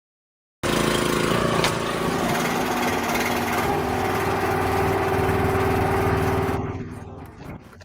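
A small engine-driven machine running steadily with a mechanical rattle. It starts abruptly about half a second in and fades out near the end.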